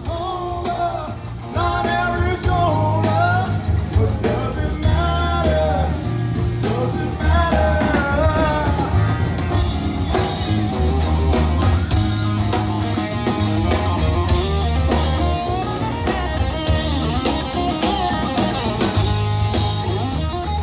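Rock song with a sung lead vocal over guitar, bass and drums keeping a steady beat.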